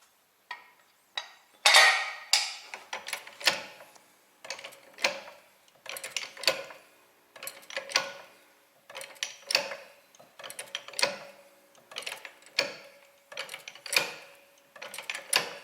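Trolley jack being pumped by its handle: a regular metallic clank-and-click, often in pairs, about every second and a half, as the jack lifts the car.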